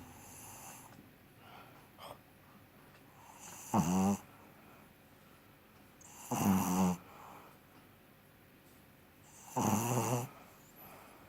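Pug snoring in its sleep: three loud snores about three seconds apart, with quieter breathing between them.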